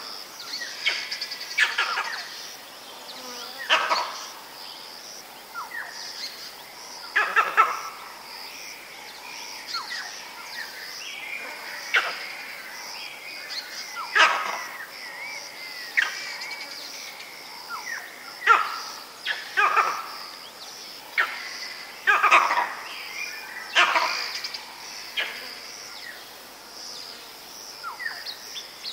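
Vervet monkey leopard alarm calls, coming mainly from one monkey. They are short, sharp barks repeated every second or two, some in quick pairs.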